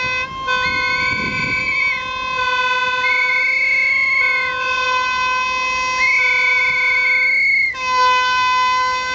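Ships' horns sounding as two Hurtigruten ships pass each other, the usual greeting between passing ships. One steady horn tone is held throughout, and a higher horn tone sounds three long blasts of about a second and a half over it.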